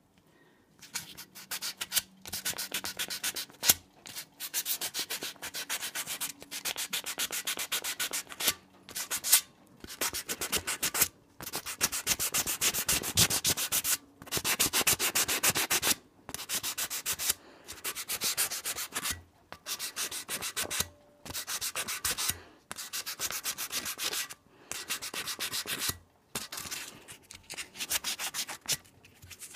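800-grit wet/dry sandpaper rubbed quickly back and forth by hand over an aluminum model train passenger car body, kept wet with soapy water, in runs of fast strokes broken by brief pauses. It is grinding out a deep scratch near the end of the car.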